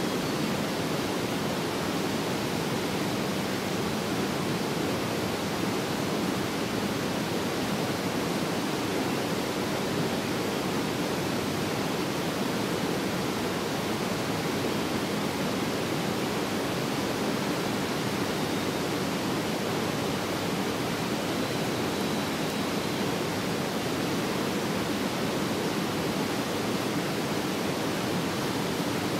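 Waterfall rushing steadily: an even, unbroken noise of falling water.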